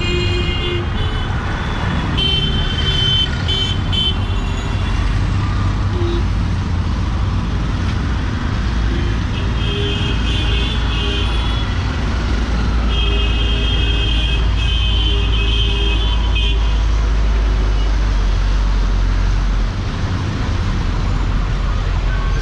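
Busy city street traffic on a wet road: engines running and tyres on the wet surface, with vehicle horns honking in stretches about two seconds in, around ten seconds, and again for a few seconds after that. A heavier, steady low engine rumble runs through the middle.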